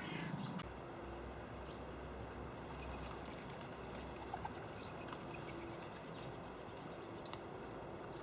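Faint outdoor bird calls around a winter bird feeder. A short harsh call comes right at the start, then scattered brief high chirps and a few low drawn-out notes, over a steady low hum.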